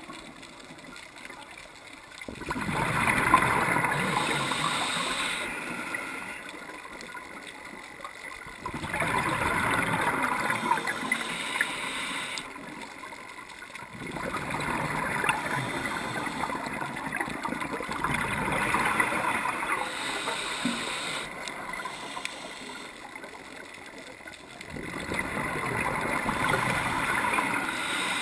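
Scuba diver's regulator underwater: exhaled air bubbling out in bursts of a few seconds each, five in all, with quieter gaps between them.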